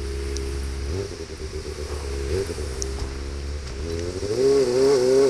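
Kawasaki ZX25R's inline-four engine, fitted with an Austin Racing exhaust, running as the motorcycle is ridden. The note holds steady with two brief pitch changes, then the revs climb and get louder from about four seconds in.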